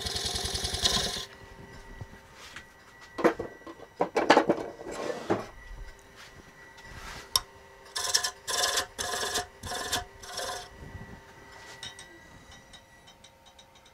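A turning tool cutting into spinning maple on a wood lathe for about the first second, then a series of short wooden scraping and rubbing strokes, about five in quick succession around the middle. A faint steady lathe whine runs underneath.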